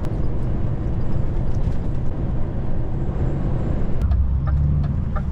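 Inside the cab of a DAF XF lorry cruising on a motorway: steady engine and road rumble. About four seconds in there is a click, and the low rumble swells for about a second.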